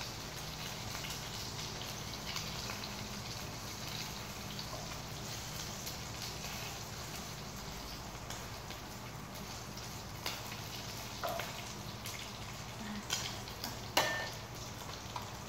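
Food sizzling and crackling in hot oil in a frying pan. Over the last few seconds a spatula clinks and scrapes against the pan a few times, the loudest knock near the end.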